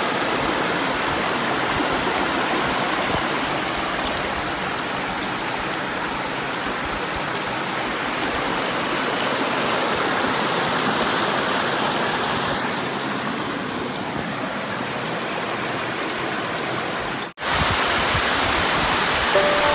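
Mountain creek rushing over rock ledges and small cascades: a steady, dense rush of water. It cuts out for an instant about seventeen seconds in, then the rushing resumes.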